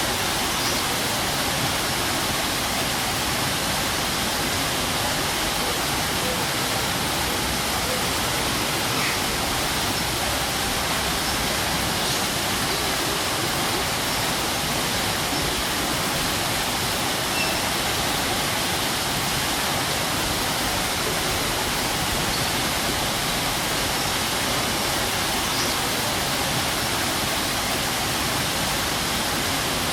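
Strong waterfall: a steady, even rush of falling water that does not change.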